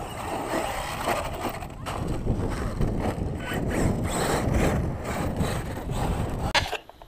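Electric RC monster truck driving over sand and gravel, its motor and tyres mixed with wind rumbling on the microphone. A sharp knock about six and a half seconds in, after which the sound drops away.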